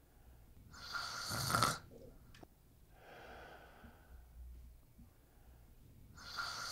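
A person snoring: two loud snoring breaths in through the nose, about five seconds apart, each swelling and then stopping short, with a softer breath out between them.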